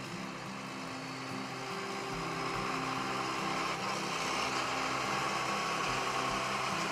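John Deere 7230 tractor's six-cylinder diesel engine running steadily as the tractor drives along, growing gradually louder as it comes closer.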